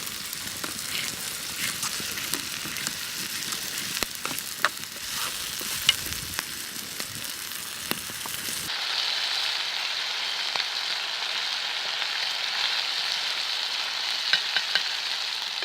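Food frying in a pan, a sizzle with scattered pops and crackles. About nine seconds in the sound cuts abruptly to a steadier, higher-pitched sizzle.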